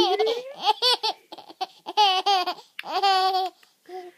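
An eleven-month-old baby boy laughing in several short, high-pitched bursts of giggles with brief pauses between them.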